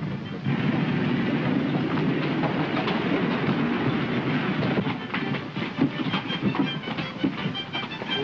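Steady rumbling and clattering of a moving vehicle, with many sharp clicks that grow thicker in the second half.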